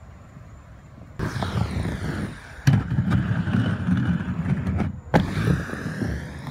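Inline skate wheels rolling and rumbling on a wooden skate ramp, starting about a second in. Sharp clacks of skates striking the ramp come near the middle and again near the end, each followed by more rolling with a faint rising and falling whine.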